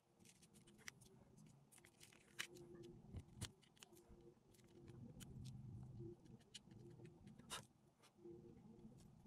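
Faint rubbing and scratching of fingertips working coloured sand onto a sand-painting sheet, with scattered small clicks and ticks.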